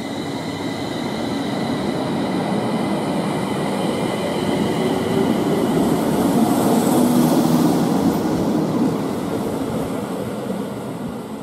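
Aoimori Railway 701 series electric train pulling out and rolling past at close range: its wheels rumble on the rails, growing louder to a peak about seven seconds in, then fading as it moves away. A thin high whine sounds at the start and dies away over the first few seconds.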